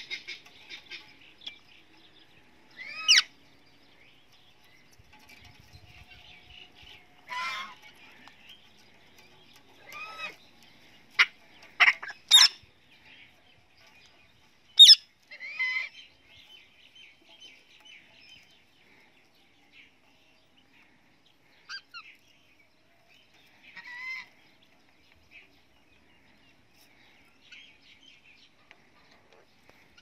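Parrots squawking: a dozen or so short, shrill calls at irregular intervals, bunched mostly in the first half, with fainter chatter in between.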